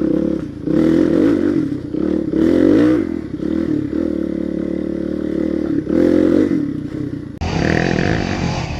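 Supermoto motorcycle engine running under way, its pitch rising and falling as the throttle is worked, with several swells in revs. The sound changes abruptly near the end.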